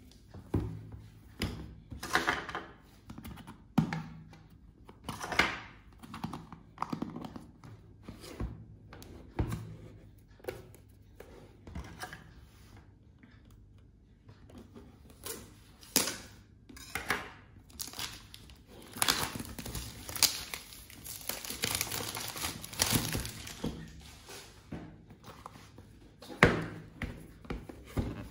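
A cardboard product box being handled on a wooden desk: repeated thunks as it is set down and turned over, with its plastic shrink-wrap crinkling and tearing. The crinkling and tearing is densest about two-thirds of the way through.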